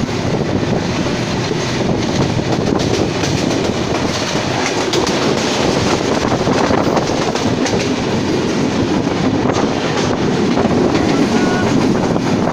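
Passenger train running at speed, heard through an open carriage window: a steady rumble of wheels on the track with light clattering over the rails.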